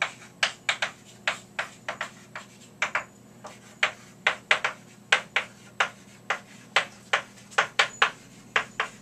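Chalk writing on a blackboard: an uneven run of short, sharp taps and scrapes, about three a second, as letters are written.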